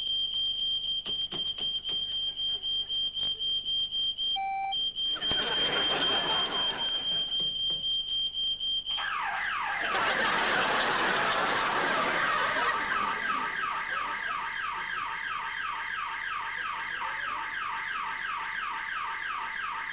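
Electronic lab alarm set off as a warning that a frozen body's pod is defrosting. First comes a steady high beeping tone with quick repeated chirps. About nine seconds in it changes to a rapid, continuous falling-sweep siren. A rushing hiss rises twice under the alarm, once around the middle and again as the siren starts.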